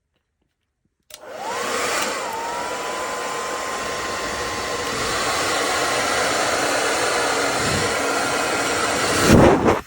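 Wavytalk QL-5917BDC ionic hair dryer switched on about a second in: its motor whine rises and settles to a steady pitch over a loud rush of air. It runs steadily, swells louder just before the end, then cuts off.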